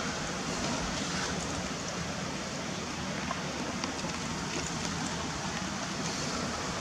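Blizzard wind blowing steadily, an even rushing noise.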